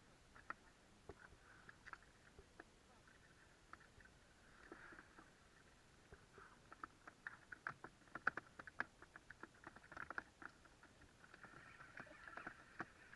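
Near silence on a small open boat: faint, irregular clicks and taps, more frequent in the second half, over light water sounds.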